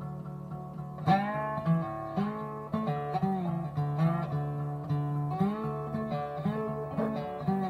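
Background music: an acoustic guitar picking a melody with bent notes over a held low bass note.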